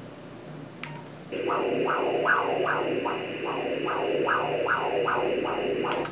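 Ultrasound machine's Doppler audio of blood flow in the fetal umbilical cord: rhythmic pulsing whooshes, about two and a half a second at the baby's heart rate. It starts about a second in and cuts off suddenly near the end.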